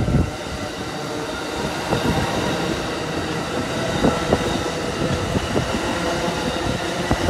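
Amtrak California bilevel passenger cars rolling past, their steel wheels clicking over rail joints now and then over a steady, even hum of the moving train.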